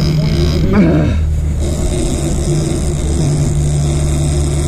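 A sportfishing boat's engine running steadily under way, a constant low drone, with the rush of the wake and wind over it.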